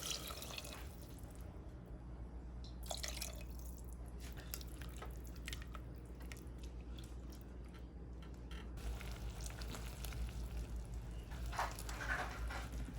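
Kitchen cooking sounds: scattered light clicks and drips over a low steady hum, with a cluster of louder knocks near the end.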